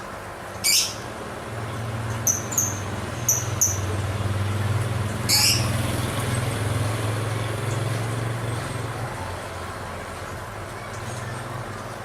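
Lovebird giving shrill chirps: one sharp call under a second in, four short chirps in two quick pairs a couple of seconds later, and another call just past five seconds, over a low steady hum.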